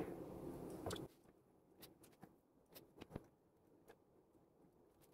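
Faint, scattered small clicks and taps of hands working a plastic barrel-nut alignment jig and threading in its nylon screws.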